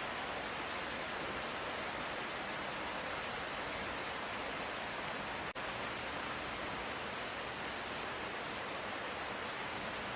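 Steady light rain falling, an even hiss with no thunder, broken by a momentary dropout about halfway through.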